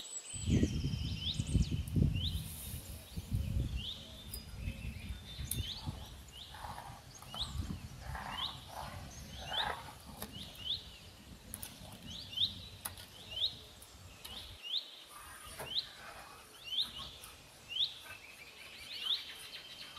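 A bird calling over and over outdoors, a short rising chirp repeated about once or twice a second, with a low rumble in the first few seconds.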